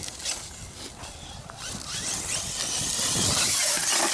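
Electric 1/8-scale RC truggy running over rough, rocky ground: tyres scrabbling over gravel and scattered knocks from the chassis, with the brushless motor revving up and down about three seconds in.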